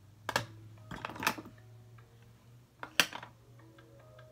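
Makeup containers being handled and set down on a table: a knock near the start, a short run of clatter about a second in, and the sharpest knock about three seconds in.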